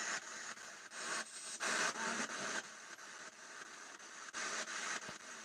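Faint hissing static in uneven, choppy bursts that cut in and out, the sound of electronic noise played for an ITC spirit session.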